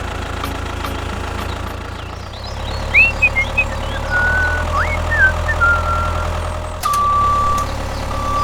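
A small engine-like motor hums steadily. Short squeaky whistling chirps come in the middle, and a high steady beeping tone starts near the end, like a vehicle's reversing beeper.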